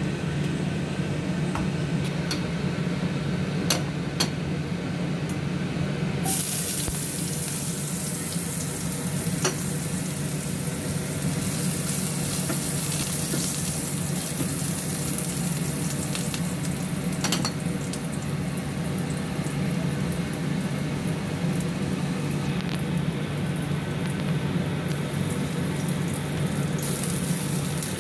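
Ginger and then garlic sizzling in hot cooking oil in a wok, the sizzle starting suddenly about six seconds in when the ginger goes into the pan, with scattered light crackles before it. A steady low hum runs underneath.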